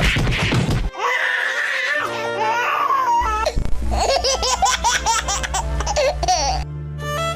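High-pitched laughing, rapid and rising and falling in pitch, over background music; the laughter stops near the end and the music carries on alone.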